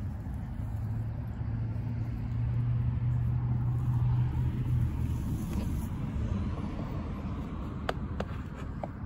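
A motor vehicle passing nearby: a low engine hum that swells for a few seconds, drops slightly in pitch and fades. A few sharp clicks near the end.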